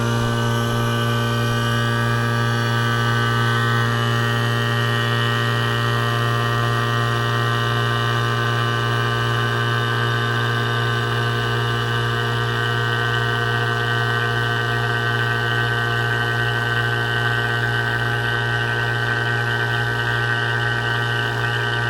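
HVAC vacuum pump running with a steady, unchanging hum, evacuating the air-conditioning system through the suction line after the refrigerant circuit was opened.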